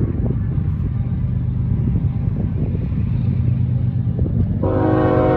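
BNSF diesel freight locomotives approaching with a steady low engine rumble; about four and a half seconds in, the lead locomotive's multi-chime air horn starts and holds one steady chord.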